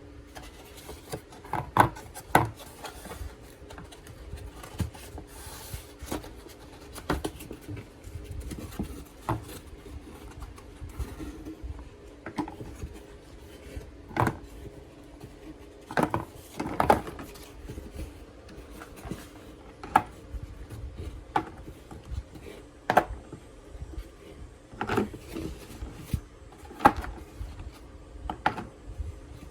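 Plastic egg storage box being handled: irregular clicks and knocks with some rubbing and scraping. A steady low hum runs underneath.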